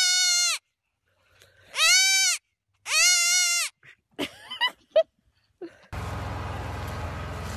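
Baby goat bleating loudly three times, each bleat a strained, pitched call about half a second long, followed by a few short, softer sounds. About six seconds in it gives way abruptly to a steady outdoor hiss.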